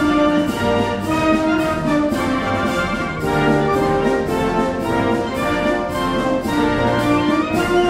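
Military brass band playing a quick march, brass instruments carrying the tune over a regular drum beat.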